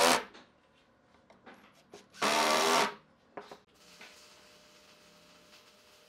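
Cordless drill driving wood screws into a pine board: a burst of motor whine that stops just after the start, then a second burst about two seconds in lasting under a second. A few light clicks follow.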